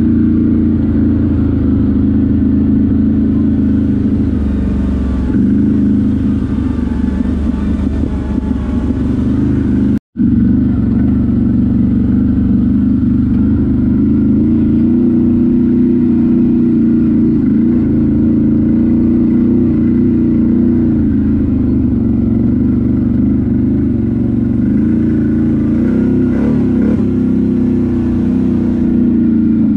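ATV engine running steadily under way, its pitch shifting a little with throttle. The sound cuts out for an instant about ten seconds in.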